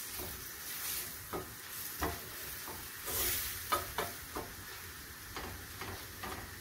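Vegetables sizzling in a stainless-steel frying pan as they are stirred with a wooden spoon, the spoon knocking against the pan at irregular intervals.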